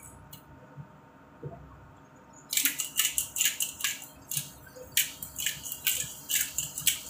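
Handheld spice grinder being twisted over a pan, giving a quick run of gritty grinding strokes, about three a second, that starts about two and a half seconds in.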